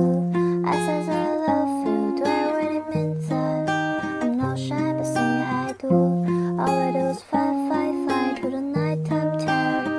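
Instrumental background music with plucked strings over a bass line of notes held about a second each.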